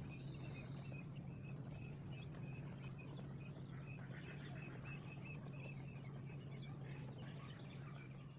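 Quail chicks peeping: a rapid, regular series of short high peeps, about three to four a second, over a low steady hum.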